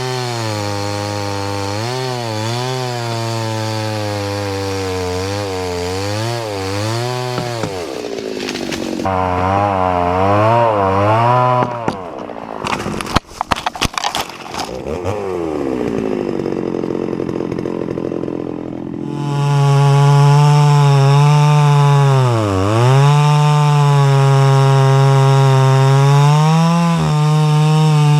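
Stihl MS 390 chainsaw cutting into a red oak log, its engine pitch wavering as it bogs under load. About halfway there is a short clattery break, then the saw is run at higher revs and cuts on, dipping once under load.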